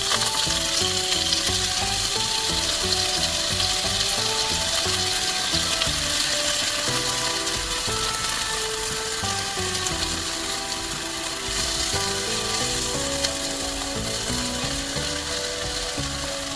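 Food frying in a hot pan, a steady crackling sizzle, under background music with a plucked-sounding melody and a low beat.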